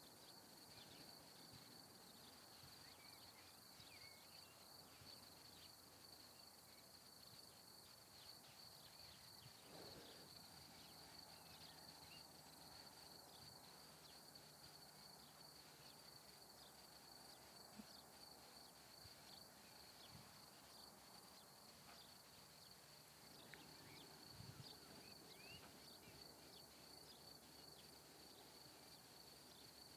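Near silence: quiet room tone with a faint, steady high-pitched whine.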